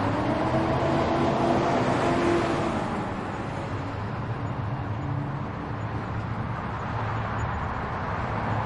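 Street traffic: a steady rush of passing vehicles. In the first three seconds one vehicle's engine passes close, its pitch rising slightly before it fades back into the traffic.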